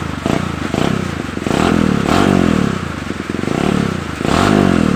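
Kawasaki KLX150's single-cylinder four-stroke engine, fitted with a new profile-ground camshaft, revved in repeated throttle blips. There are a couple of short stabs near the start and longer held revs around the middle and near the end.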